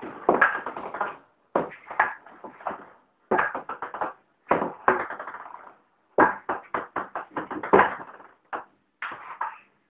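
Ping-pong ball bouncing on a table-tennis table in repeated runs of quick, sharp clicks that die away, about seven runs with short pauses between them.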